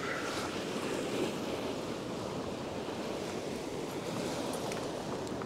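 Ocean surf washing and breaking against a rock shelf: a steady rushing wash of sea water over the rocks.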